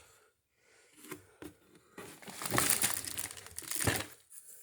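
Packaging being handled and crinkled while items are taken out of a shipping box: a couple of light knocks about a second in, then about two seconds of rustling and crinkling.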